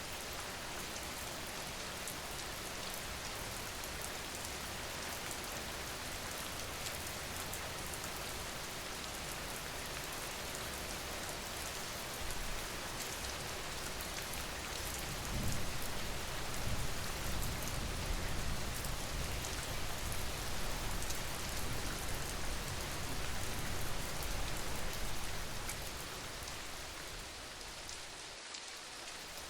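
Steady rain falling, a dense even patter. About halfway through, a low rumble swells up under the rain for several seconds, then fades.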